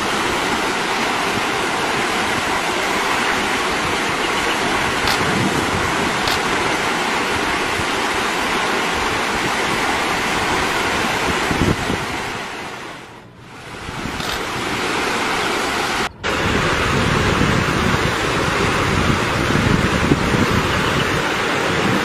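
Steady rushing noise of flowing river water and wind on the microphone, with a low rumble. It fades down briefly around the middle and drops out for an instant a couple of seconds later.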